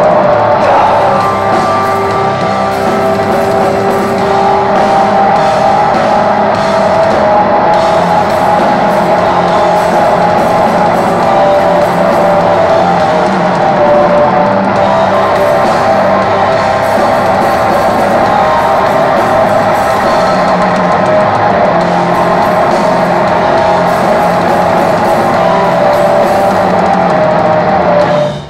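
Black metal band playing live: distorted electric guitars, bass and drums in a loud, dense wall of sound. The music drops out abruptly at the very end.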